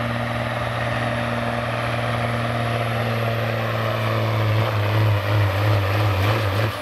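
Semi tractor's big diesel engine running hard under load as it drags the pulling sled, a steady low drone that grows louder and pulses unevenly in the last two seconds.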